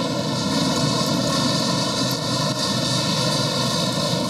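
Steady background din of a large exhibition hall: an even wash of noise with no distinct sounds standing out.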